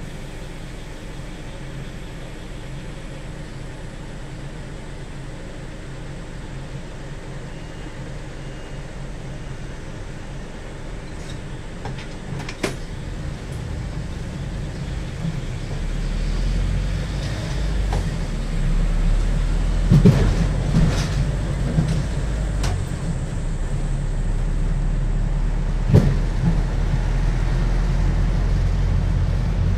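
Interior of a city bus: a steady low hum while it stands in traffic, then the running noise grows louder from about halfway through as the bus moves off. A few sharp knocks and rattles from the cabin come through.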